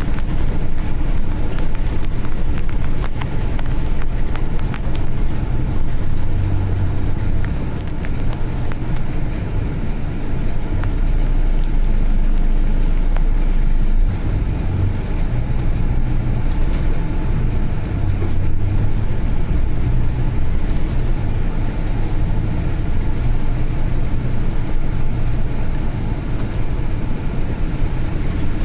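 Inside a Volvo B8 city bus under way: the diesel engine runs with steady road rumble, its note rising and falling as the bus speeds up and eases off.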